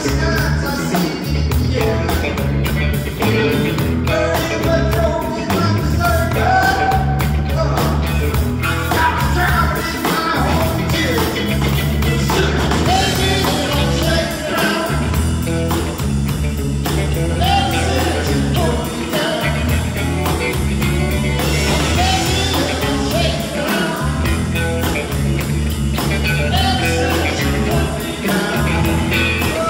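Live blues-rock band playing, with a steady bass and drum groove under a wavering lead melody line.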